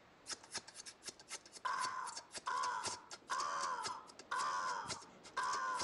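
Crows cawing: a run of harsh calls, mostly in pairs, starting about a second and a half in. Rapid sharp clicks run under them.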